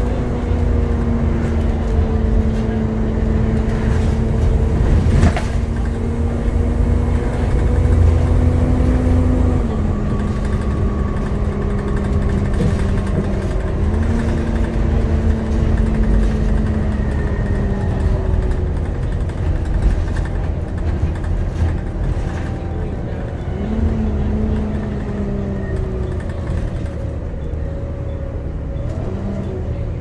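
Volvo B7TL double-decker bus heard from inside on the move: the engine's hoover-like whine over a heavy low rumble. The pitch steps down and climbs back up several times as the bus changes gear and pulls on.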